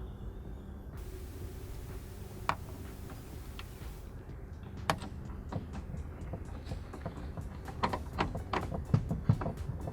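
Sharp clicks and knocks from work on a car door during a door-handle replacement, a few at first, then a quick cluster near the end, over a steady low hum.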